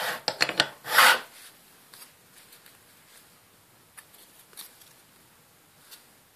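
Handling noise: a burst of loud rubbing and scraping in the first second or so as a dumbbell is moved on a board, then a few faint clicks and taps.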